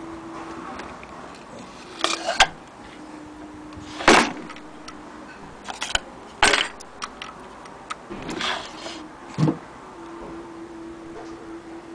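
Objects being handled on a wooden table: about half a dozen sharp knocks and clatters, with a short scrape a little after eight seconds, over a faint steady hum.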